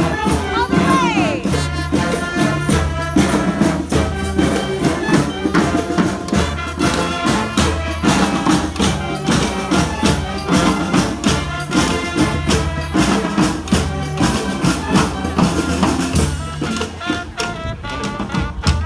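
Street brass band playing a salsa tune live: horns riffing together over drums and hand percussion with a steady beat.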